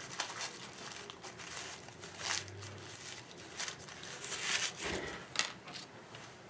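Irregular scratchy rustling and crinkling as painting supplies are handled on a tabletop, with a few brief louder scrapes about two, four and a half and five and a half seconds in.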